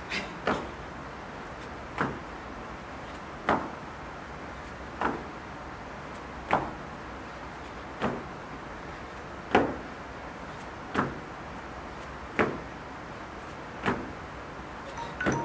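Sneakers landing on rubber gym flooring during 180° jump squats, one sharp landing about every second and a half.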